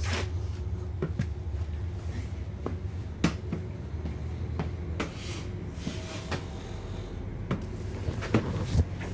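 Steady low rumble inside a moving O-Train diesel railcar, with irregular sharp clicks and knocks scattered through it.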